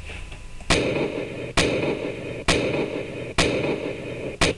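A series of sharp bangs about one a second, each followed by a steady hiss that runs on until the next, with two strikes close together near the end.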